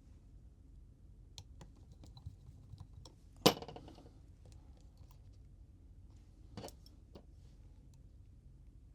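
Small clicks and taps of tools and phone parts on a workbench during smartphone reassembly. One loud, sharp click comes about three and a half seconds in, and another, weaker one a few seconds later.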